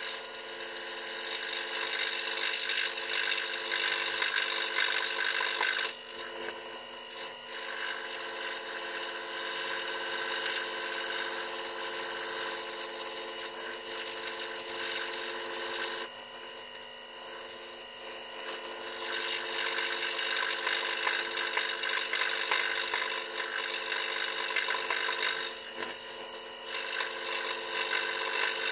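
WEN scroll saw running, its fine blade cutting through a wooden board along a pattern line, over a steady motor hum. The cutting noise drops off briefly three times as the workpiece is eased or turned.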